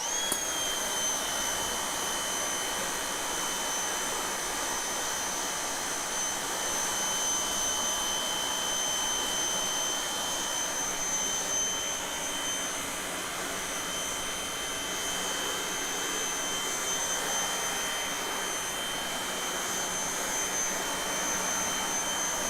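Electric pressure washer switched on and running steadily: a high, even motor whine over the hiss of the water spray.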